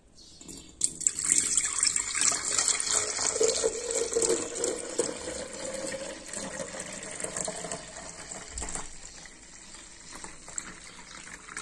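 Juice pouring in a steady stream into a large glass jug, splashing as the jug fills. It starts about a second in and is loudest over the first few seconds, then quieter.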